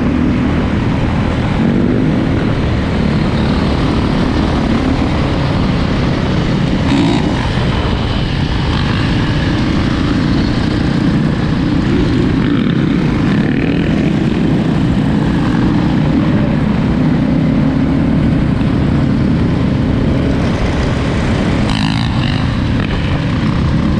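Honda CRF450 dirt bike's single-cylinder four-stroke engine running steadily under way, its pitch rising and falling with the throttle, over a steady rush of noise.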